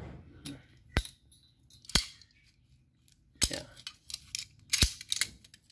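Steel pipe wrenches clicking and clinking as they are handled and set down: a handful of sharp metallic knocks, each about a second or more apart.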